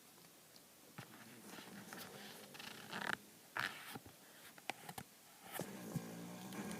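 A man snoring in his sleep: rough, low-pitched rasping breaths, with two loud breathy bursts about three seconds in and a few faint clicks.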